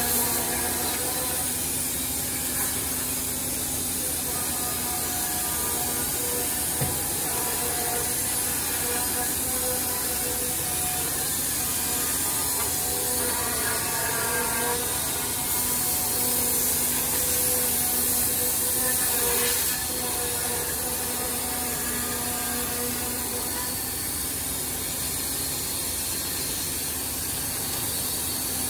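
Woodmaster CNC curve-cutting saw running and cutting through a wooden block: a steady motor hum under the hiss of the blade in the wood. The hiss grows louder and brighter for a few seconds past the middle, and there is a single click about seven seconds in.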